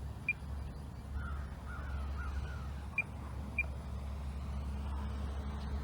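Steady low rumble of wind on the microphone, with three short high electronic beeps and a faint wavering bird call in the first half.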